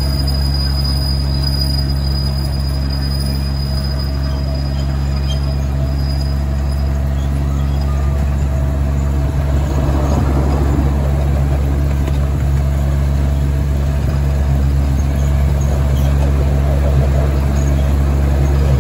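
Miniature park train locomotive running steadily along its track, a constant low drone from its drive. A faint high whine fades out about six seconds in.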